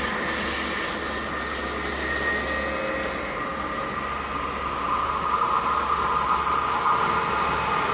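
Train running on the track, with a high squeal from the wheels; it gets louder about five seconds in.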